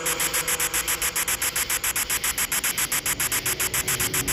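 Ghost box sweep from the GhostTube app: rapid, evenly spaced pulses of hissing static, about eight a second.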